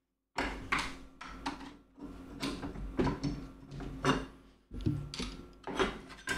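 Flathead screwdriver prying at the seam of a heavy metal jail-cell lock case to lift its top cover off: a run of short metal scrapes, clicks and knocks as the tip is worked along the edge and the case shifts on the table.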